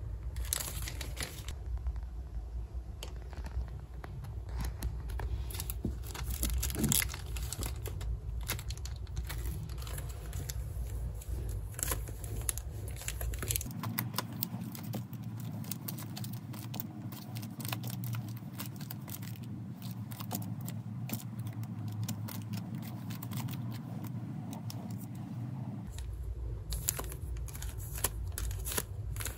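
Plastic packaging crinkling and rustling as packs of wafers are handled and opened, in a run of many small clicks and rustles.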